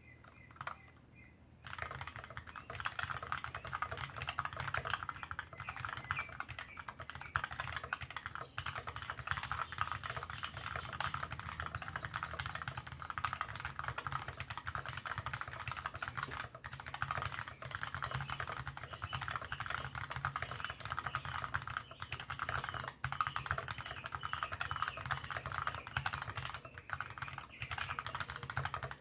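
Continuous fast typing on a mechanical keyboard with Kailh BOX Dark Yellow linear switches, a steel plate, a wooden case and GMK keycaps: a dense run of keystroke clacks that starts just under two seconds in. A steady low hum sits beneath it.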